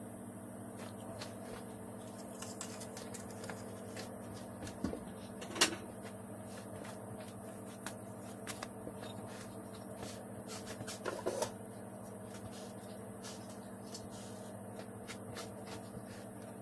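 A steady low hum with scattered small clicks and knocks of hands handling the sandwich and pita bread, the sharpest a single knock about five and a half seconds in and a short cluster of taps around eleven seconds.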